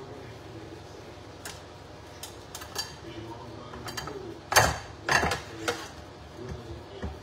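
Metal muffin tin knocking and clinking against the stovetop as meat is pressed down into its cups: scattered light clicks and knocks, with two louder clanks a little past halfway.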